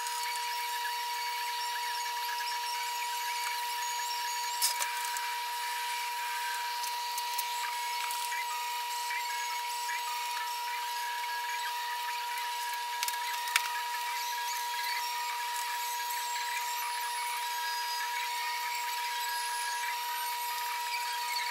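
A cloth rag scrubbing and wiping the painted metal head of a milling machine, a continuous scratchy rubbing, with a couple of sharp clicks. A steady high whine at one pitch runs underneath.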